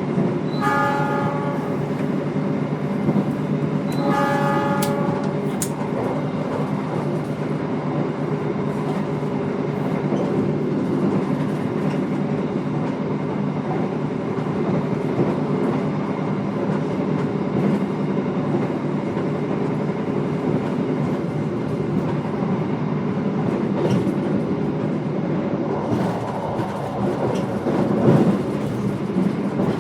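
Steady rumble of a moving passenger train heard from inside an executive-class carriage. The train horn sounds two blasts about a second long each within the first five seconds.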